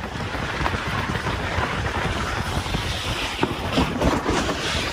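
An inner tube rushing down a matted tube slide: wind buffets the microphone while the tube rattles and scrapes over the studded matting, a steady noisy rush with many small clicks running through it.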